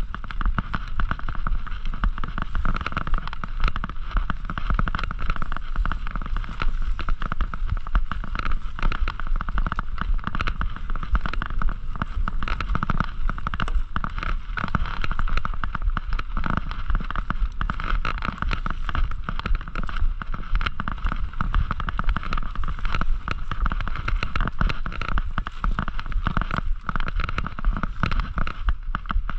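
Mountain bike ridden over a rough cross-country trail: constant rattling and quick knocks from the bike, over a low wind rumble on the microphone.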